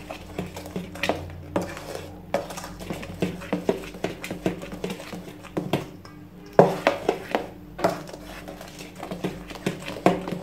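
A fork beats a thick batter in a stainless steel mixing bowl, clinking and scraping against the metal in quick, irregular strokes, several a second.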